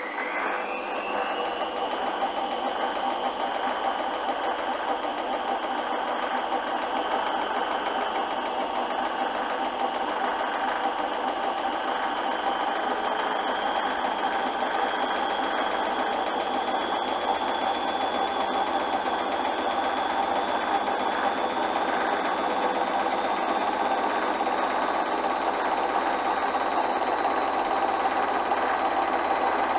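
Washing machine drum speeding up for a spin: the motor's whine climbs quickly in the first second, then keeps rising slowly and steadily, over a constant rushing noise from the drum.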